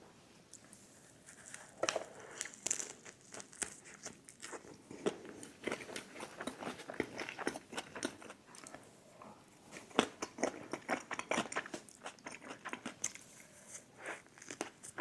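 A person chewing and biting crisp food close to the microphone, with irregular crunches coming quickly one after another from about two seconds in.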